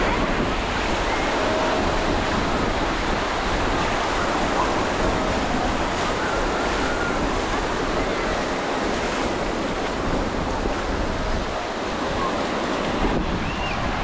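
Ocean surf breaking and washing over a shallow sandy beach as a steady rush, with faint distant voices of bathers here and there.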